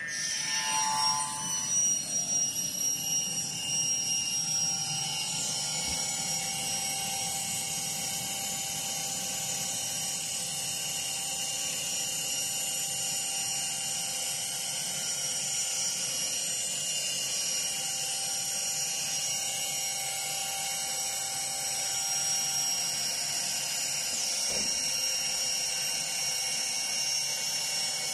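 CNC router spindle driving a 120 mm saw blade through a wooden board: a steady high-pitched whine over cutting noise, louder and uneven for the first few seconds, then even.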